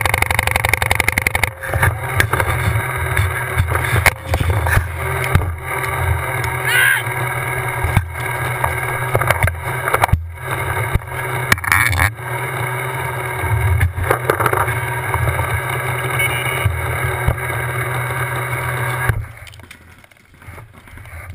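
Paintball markers firing in sharp pops, scattered and sometimes in quick strings, over a steady low rumble picked up by the marker-mounted camera. The sound drops off abruptly near the end.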